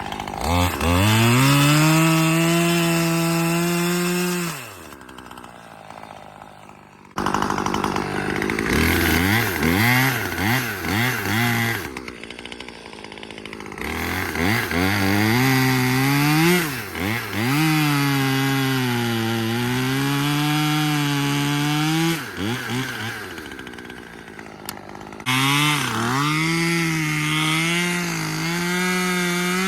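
Husqvarna T540XP Mark III top-handle two-stroke chainsaw revving and cutting wood, its engine pitch sagging under load and climbing again several times, with sudden jumps between short clips.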